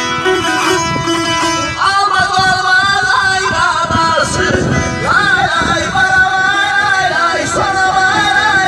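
Saz being plucked and strummed in Azerbaijani ashiq style. About two seconds in, a high wavering melody that bends in pitch joins it over the strings.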